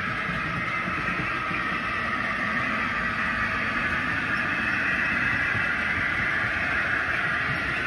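Model railway train running along the track, a steady whirr of motor and wheels on rail that swells a little as the train comes past.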